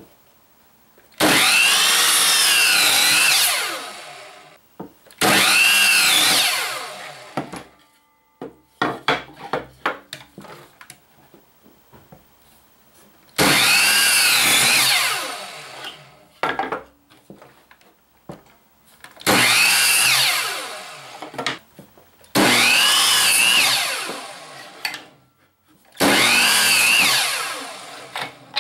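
Electric compound miter saw run six times in a row, each time starting suddenly with a loud motor-and-blade whine whose pitch wavers as the blade cuts through the board, then winding down once the trigger is released. Small clicks and knocks of the workpiece being handled come between the cuts.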